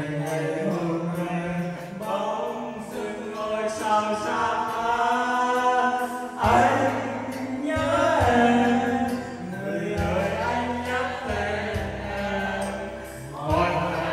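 Karaoke music played loud through a room loudspeaker, with several people singing along; a heavier bass comes in about six and a half seconds in.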